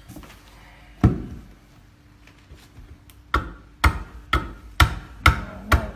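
Hafted greenstone adze (toki pounamu) chopping into a tōtara wood block across the grain: one chop about a second in, then a run of six chops at about two a second.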